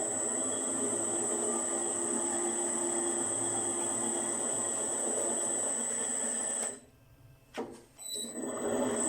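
A homemade cold-forging tube-twisting machine running: an electric motor on a frequency drive turns a motorcycle gearbox, giving a steady hum with a high whine. It stops suddenly about two-thirds of the way through, then starts up again about a second and a half later.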